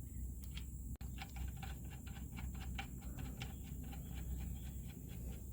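Socket ratchet clicking in quick, uneven runs of ticks as the generator's oil drain plug is screwed back in and tightened.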